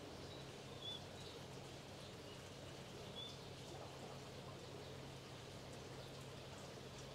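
Faint outdoor background: a steady low hum under a soft hiss, with a few short, high bird chirps in the first few seconds.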